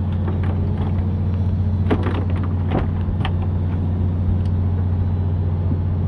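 Fishing boat's engine running with a steady low drone, with a few short clicks and knocks over it.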